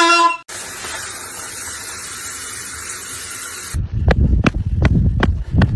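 A steady hiss lasting about three seconds, cut off abruptly and followed by a run of low thumps and sharp knocks.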